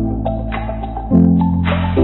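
Background music: sustained low chords that change about a second in, with light percussion hits and mallet-like notes over them.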